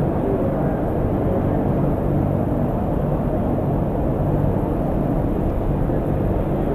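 Car engine running steadily at idle, a continuous low rumble.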